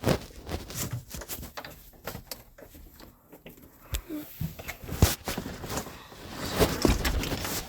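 Scattered knocks, clicks and rustling of someone moving about and handling things, with a sharper knock about five seconds in.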